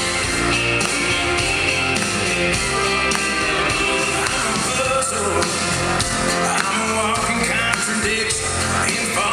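Recorded dance music: an up-tempo song with singing and a steady beat.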